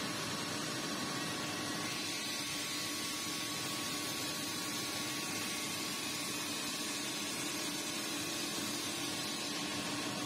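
Steady, even machine noise: a constant hum with hiss over it and a faint thin whine, with no separate knocks or clatter.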